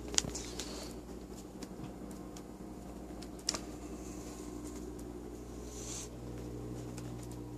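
Handling noise from a phone being carried while walking: soft rubbing and a few sharp clicks over a steady low hum.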